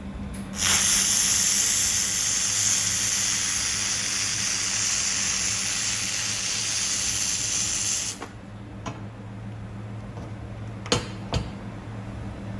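Handheld laser welder running a bead on 3.5 mm mild steel: a loud, steady hiss that starts about half a second in and cuts off sharply after about seven and a half seconds. Two sharp clicks follow near the end, over a steady low machine hum.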